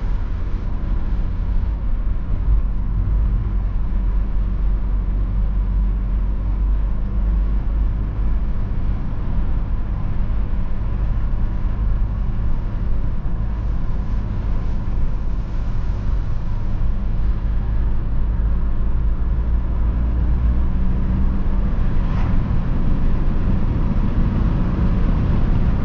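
Inside the cabin of a BMW E46 320d while driving: its four-cylinder turbodiesel running at a steady cruise together with tyre and road noise, a steady low rumble.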